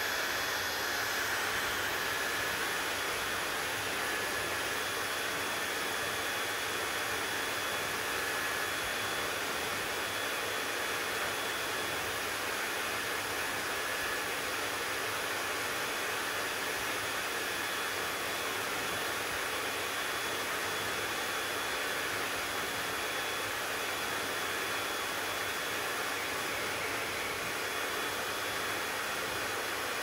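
Handheld hair dryer running steadily, a constant rush of blowing air with a faint high whine from its motor.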